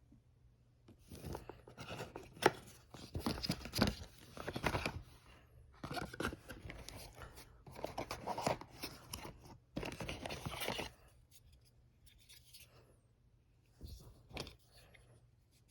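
Product packaging being opened by hand: a run of tearing, rustling and scraping for about ten seconds, then a lull and two short bursts near the end.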